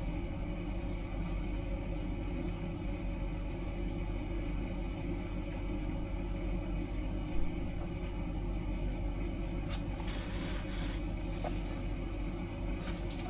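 Water running steadily from the faucet into a large jetted bathtub as it fills, heard as a low, even rumble. A single brief knock about seven seconds in.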